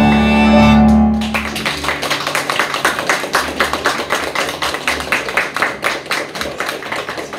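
A held final chord on keyboard instruments rings out and stops about a second in, then an audience breaks into steady applause.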